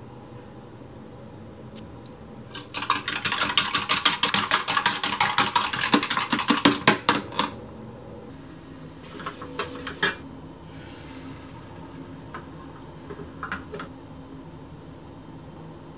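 Small wire whisk beating raw eggs in a plastic measuring cup: rapid clicking of the wires against the cup, about eight strokes a second for some five seconds, then stopping. A few lighter knocks follow.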